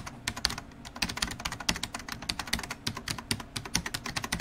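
Computer keyboard typing: a rapid, uneven run of key clicks, several strokes a second, with no pause.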